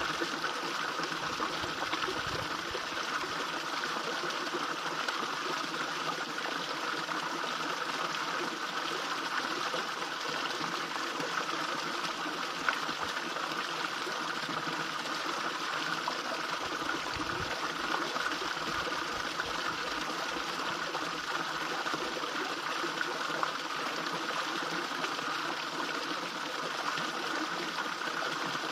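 Small fish-pond waterfall splashing and trickling steadily into the pond.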